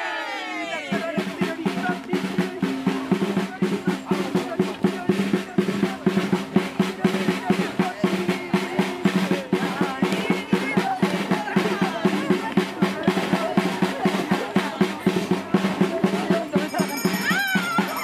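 A drum beaten in a fast, steady rhythm to accompany a folk dance, with a group's voices held on sustained notes over it.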